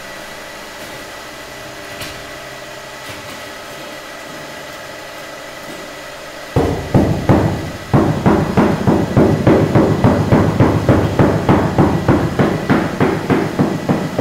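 A steady hum, then from about halfway a rapid run of sharp knocks, about four a second: the end of a wooden handle tapping a freshly laid 2x2 floor tile to bed it into the mortar.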